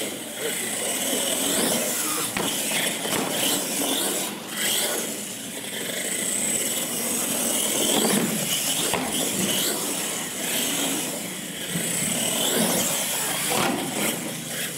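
Radio-controlled monster truck driving hard: its electric motor whining and revving up and down, with tyres scrubbing on concrete. It is louder about eight seconds in as it goes over a ramp.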